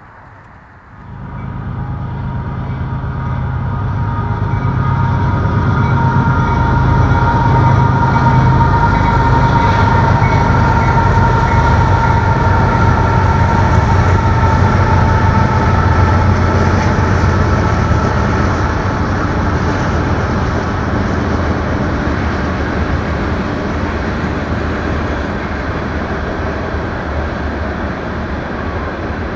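Freight train passing close by: a heavy low diesel-locomotive rumble with a steady high whine over it, starting suddenly about a second in and slowly easing toward the end.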